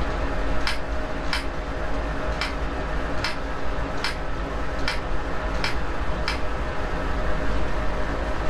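About eight short, sharp clicks, spaced a little under a second apart and stopping a little past six seconds in, over a steady low hum.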